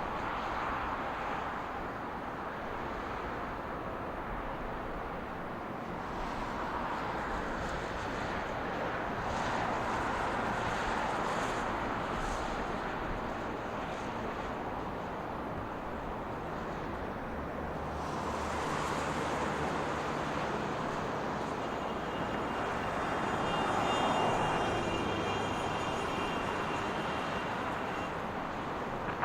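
Military aircraft flying over one after another, their jet engine noise swelling and fading several times, with a thin high whine joining in during the last third.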